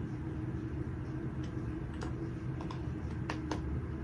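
Scattered light clicks and taps of hard plastic parts being handled and pushed together while assembling a plastic phone stand, about half a dozen over a steady low hum.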